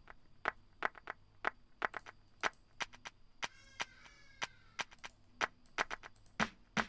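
Programmed clap and snare samples looping an Afro house drum pattern, sharp hits in a syncopated rhythm of a few per second. A brief pitched warble sounds a little past the middle.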